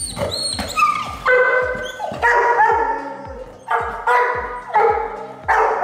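A dog barking in about five loud bouts, over background music with a steady beat.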